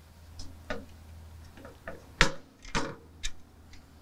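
Small metal parts of a grid heater kit (a bolt, washers and a bus bar) clicking and knocking against the intake heater plate as they are fitted by hand: several light, irregular clicks, with two louder knocks a little past halfway. A low steady hum runs underneath.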